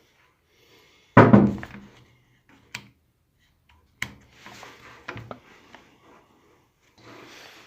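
Handling noises from setting down and working with a heavy metal object. A loud thunk about a second in rings on briefly, then come a few sharp clicks and softer scraping and clatter.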